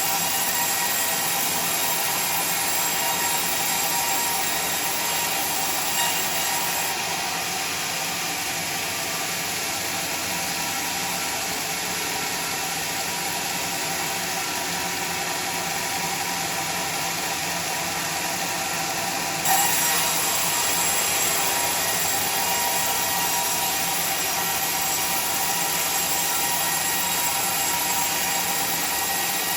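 Sawmill saw running steadily, sawing teak logs into lumber. The highest hiss drops away for about twelve seconds in the middle, then comes back.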